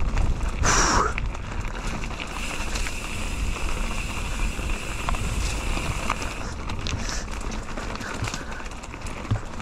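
Mountain bike riding along a dirt trail: wind buffeting the helmet camera's microphone, with tyre and frame rattle. A short loud burst about a second in, and a steady high-pitched whine for about four seconds in the middle.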